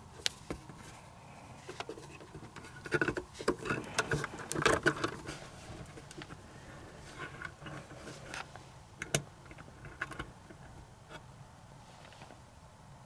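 Hands working wires into a metal electrical box: irregular clicks, scrapes and rattles of bare copper wire and plastic wire nuts against the sheet-metal box, busiest about three to five seconds in.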